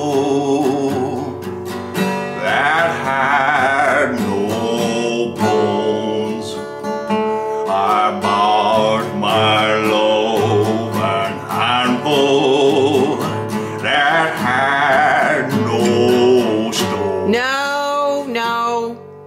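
A man singing while strumming an acoustic guitar, ending on a rising held note that stops just before the end.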